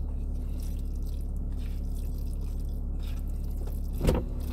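Eating from a plastic takeout bowl with a plastic spoon: soft chewing and spoon scraping through saucy rice, over a steady low hum in the car cabin. A single sharp knock comes about four seconds in.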